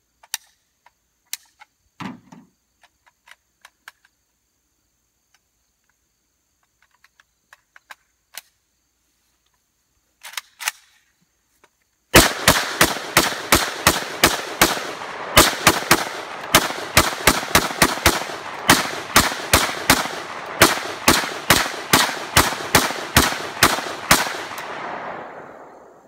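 Rifle fired rapidly, about three shots a second, for roughly thirteen seconds, each shot echoing into the next. A stretch of scattered small clicks and knocks comes before the shooting starts, about halfway in.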